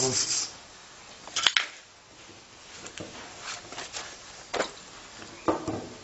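Wire brush scrubbing the steel laminations of a microwave oven transformer core, fading out about half a second in. It is followed by a sharp metallic click and scattered light knocks and taps as tools are handled and a screw clamp is tightened on the core.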